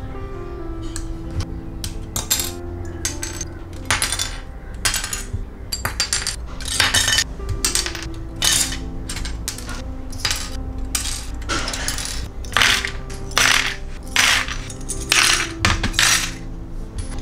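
Hobby sprue nippers snipping plastic model-kit parts off their runners: a run of sharp clicks, roughly one or two a second, with small plastic parts clattering as they fall. Background music plays underneath.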